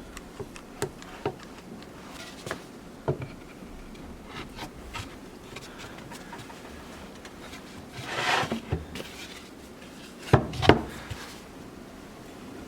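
Handling of a wooden workpiece and tools on a bench: scattered light taps and clicks, a short scraping rub a little past the middle, and two loud knocks close together near the end.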